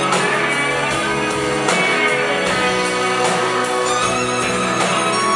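Live rock band: a violin plays the lead over electric guitars, bass guitar, drums and keyboards.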